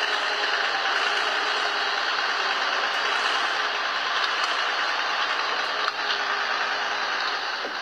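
SAME Laser 110 tractor's diesel engine running steadily under load as the tractor drags a heavy load of logs.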